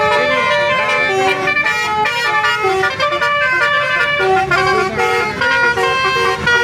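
Basuri 'telolet' multi-tone musical horns, from a bus and a car, playing overlapping tunes of steady notes that step up and down against each other.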